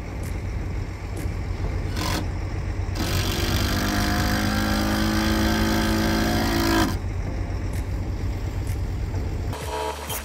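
Skid-steer loader's engine running, picking up revs for about four seconds in the middle, then settling back.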